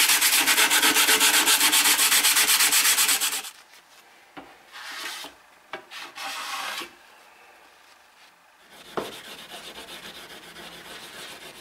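Sandpaper rubbed fast back and forth by hand over a rusty steel saw plate wetted with white spirit: a dense, even rasping that stops about three and a half seconds in, as the surface rust is taken off. After a few brief scrapes, a quieter rhythmic rubbing starts near the end, as an end-grain wooden block with honing compound polishes the plate.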